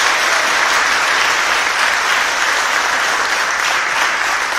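Loud, steady applause from a congregation clapping.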